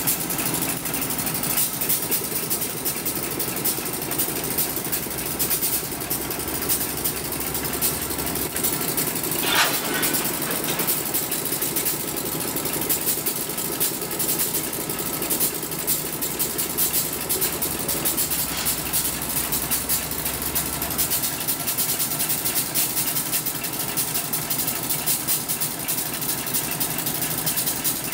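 Diesel engine of a KTM Class 29 diesel-electric locomotive idling steadily with a low drone. A short, sharp, higher-pitched sound about ten seconds in is the loudest moment.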